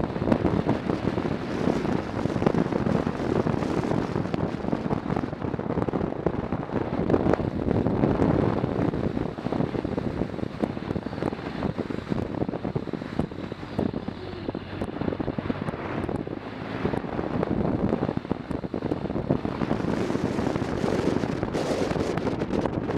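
Motorcycle riding at road speed: wind buffeting the onboard camera's microphone, with engine and road noise underneath.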